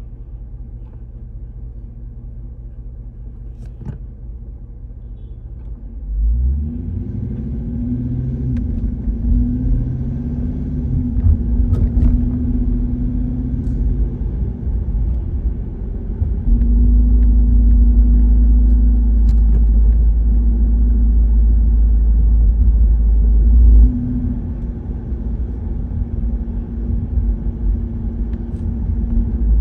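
Car engine and road noise heard from inside the cabin. It runs quietly at first with the foot on the brake. About six seconds in, the car pulls away under throttle, with the engine note rising, then settles into a steady low drone while driving, loudest from about 16 to 24 seconds in.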